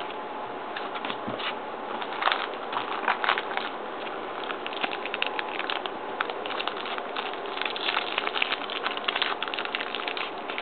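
Hockey trading cards being handled and flipped through by hand: a run of quick, dry clicks and rustles of card stock, growing busier after about two seconds, over a steady hiss.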